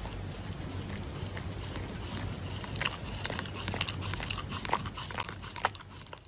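Shiba Inu chewing and biting at a paper face mask: scattered small crunching clicks over a steady hiss, mostly in the second half.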